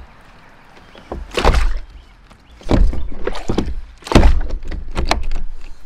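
Hard plastic knocks and clunks from a kayak pedal drive and its fittings being handled and set into the hull. They come in three bouts of quick strokes, about a second and a half in, around three seconds, and the longest from about four seconds to near the end.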